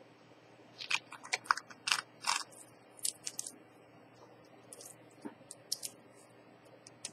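Ceramic watch bracelet links clicking and clattering against each other and the hard tabletop as the watch is picked up and handled: a quick run of sharp clicks about a second in, then scattered lighter clicks.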